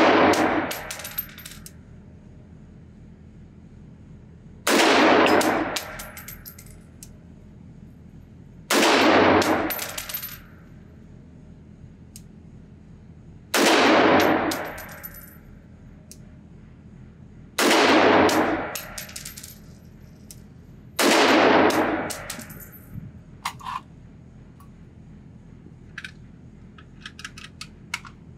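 Nemo Arms Battle Light Rifle, an AR-15-style rifle in 6mm ARC, fired slowly from a bench rest in an indoor range: a shot right at the start and five more about four seconds apart, each echoing briefly off the walls. Light clicks and clinks follow the last shot.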